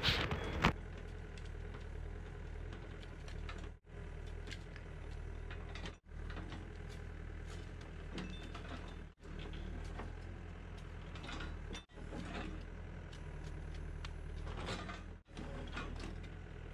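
Yanmar excavator running while its bucket works dirt, faint, with a steady low hum and scattered light clicks. The sound comes in stretches of two to three seconds, cut apart by brief dropouts.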